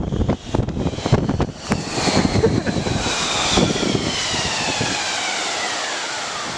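Ride down a snow-tubing run on an inner tube: wind rushing over the microphone and the tube scraping and bumping over packed snow. A high whine slides steadily down in pitch over the last few seconds.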